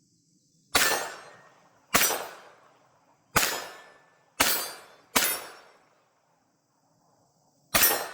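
Six unsuppressed shots from a Taurus TX22 .22 LR pistol fired at steel targets, sharp cracks at uneven intervals, two of them in quick succession, each followed by a ringing decay.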